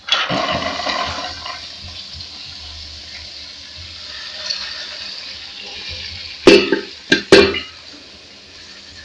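Chopped vegetables tipped into hot oil in a pot, sizzling loudly at once and then settling into a steady sizzle. About six and a half seconds in, three sharp knocks against the pot.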